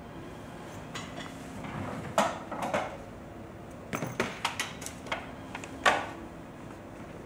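Light knocks and clinks of small hard objects being handled, about eight separate strikes at irregular intervals, the sharpest about two and six seconds in.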